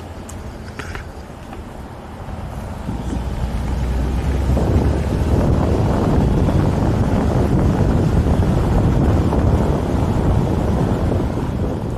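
Road noise and wind from a moving vehicle: a steady low rumble with wind rushing over the microphone, swelling louder about three to four seconds in and staying loud.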